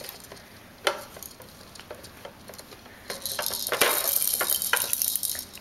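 Hard plastic toys on a baby's activity centre clicking and rattling as they are handled. From about three seconds in there is a dense hissing rattle that lasts about two seconds.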